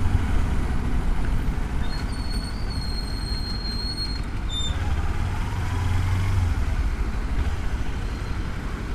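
Riding sound of a Kawasaki Versys-X 300's parallel-twin engine with wind and road traffic noise, picked up by a helmet microphone. A high-pitched squeal, like a nearby vehicle's brakes, sounds for about two seconds, and the low engine hum swells about five seconds in.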